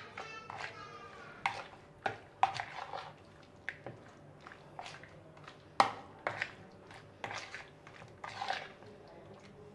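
A fork knocking and scraping against a plastic bowl while it mixes chunks of chicken in a thick yogurt-and-spice marinade, with irregular clicks and wet squelches, the sharpest about six seconds in. Near the start there is a brief high-pitched sound about a second long.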